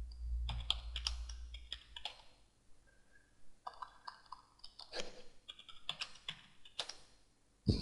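Computer keyboard being typed on in irregular bursts of key clicks as a password is entered, with a brief pause partway through and a louder click at the end.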